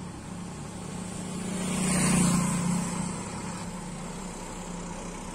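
A road vehicle drives past close by; its sound swells to a peak about two seconds in and then fades, over a steady low engine hum.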